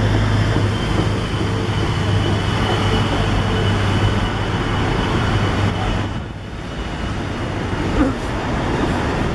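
City street traffic, with a bus engine's steady low hum close by that drops away about six seconds in.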